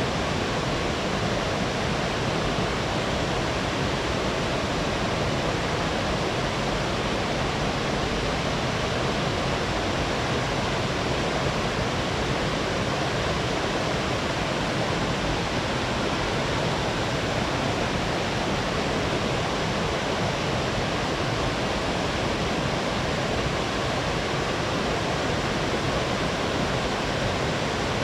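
Small mountain-stream waterfall: water cascading over rocks in a steady, full rush that does not change.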